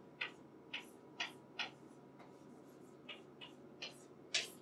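Chalk tapping and scratching on a chalkboard as someone writes: a string of short, sharp clicks at an uneven pace, about two a second.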